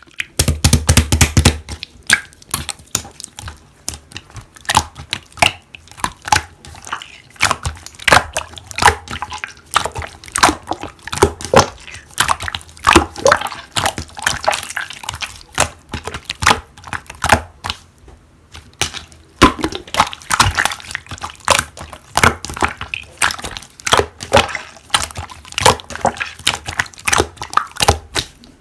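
Slime being squished and kneaded by hand, giving a dense, irregular run of wet clicks and pops, with a short lull about two-thirds of the way through.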